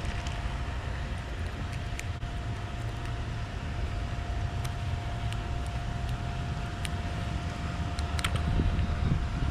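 Steady low outdoor rumble with a faint steady hum, and a few light clicks from fishing pliers working a hook free of a bass's mouth.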